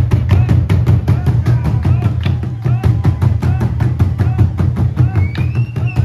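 Background music with a steady, fast drum beat over a heavy bass line.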